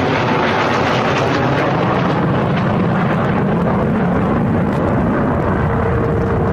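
Su-57 fighter's jet engines running loud, a continuous roar whose high hiss fades after about two seconds while a deep rumble carries on, as the aircraft passes and moves away.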